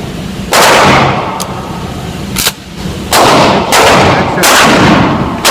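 Mossberg 500 pump-action shotgun firing: a loud shot about half a second in that rings on for about a second, then a rapid string of shots roughly every second through the second half.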